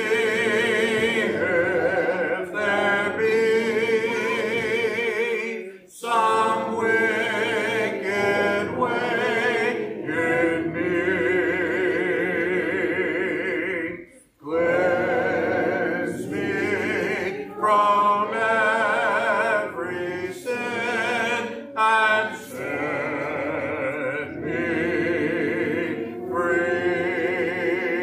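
Congregation singing a hymn a cappella, unaccompanied voices in long held phrases, with brief pauses for breath about six and fourteen seconds in.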